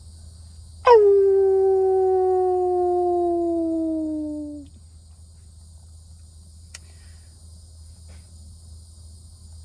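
One long howl of about four seconds: it leaps up sharply at the start, then holds a pitch that slowly sags before cutting off. Crickets chirr steadily behind it, and a faint click comes a couple of seconds after the howl ends.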